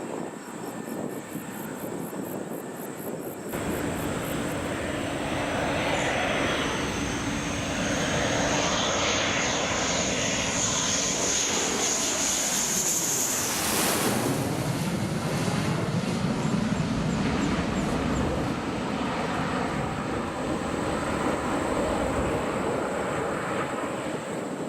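An F-15 fighter on landing approach passes low overhead. The jet whine builds and rises to a peak about 14 seconds in, drops in pitch as the jet passes, and gives way to a lower rumble that slowly fades.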